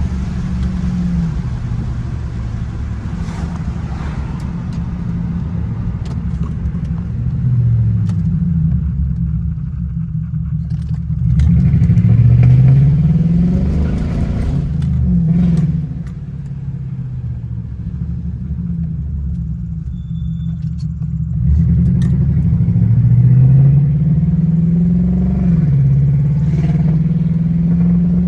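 Jaguar XJR's supercharged V8 pulling the car along the road. The engine note climbs in pitch and grows louder twice, about eleven seconds in and again about twenty-one seconds in, and falls back in between as the car accelerates and shifts.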